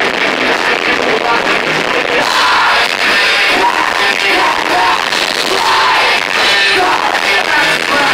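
Heavy metal band playing live, loud: electric guitar and drums with a vocalist's voice over them through the PA.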